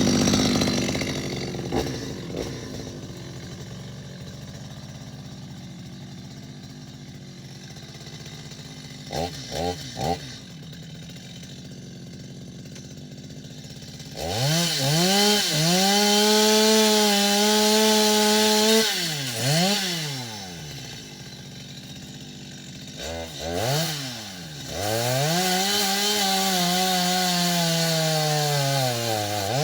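Two-stroke chainsaw idling, then three quick throttle blips about nine seconds in. After that it runs at full throttle for about five seconds, drops back with a few blips, and runs at full throttle again for the last five seconds, its pitch sagging slowly as it cuts wood in tree felling.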